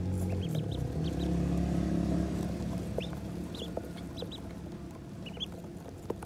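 A flock of ducklings peeping, with short high peeps scattered through, over a steady low hum.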